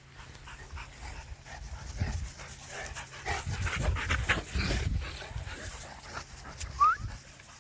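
Dogs panting and moving about close by, with a short rising whine near the end.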